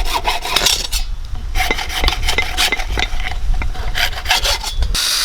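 Rapid rasping strokes of a hand tool working a piece by hand, in several bursts with short pauses. Near the end a power drill starts running with a steady whir.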